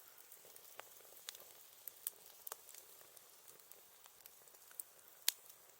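Campfire crackling: a faint steady hiss with irregular sharp pops and snaps, the loudest one about five seconds in.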